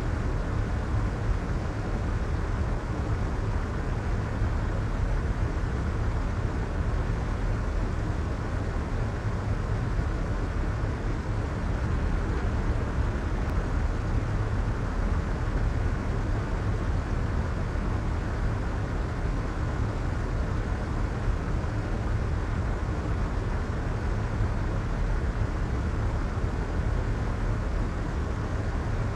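Soft white noise: a steady, even hiss and rumble with no changes. Most of its weight is in the deep low end, and it thins out in the treble.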